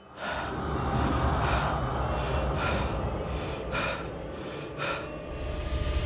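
Horror intro sound design: a steady low rumbling drone with a series of short, breathy gasps laid over it every half second to a second.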